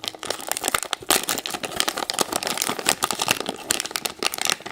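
Wrapper of a surprise toy package crinkling and tearing as it is opened by hand, a dense, continuous run of crackles.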